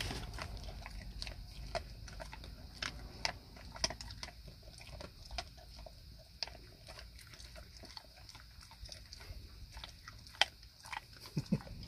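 Dog chewing a lamb fillet treat: irregular faint crunches and clicks of teeth, with a few louder crunches.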